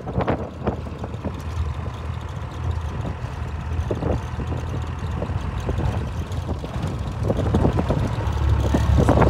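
Classic Land Rover's engine running steadily under way, heard from inside the cab, with scattered short knocks and rattles over the rough track; it grows louder near the end.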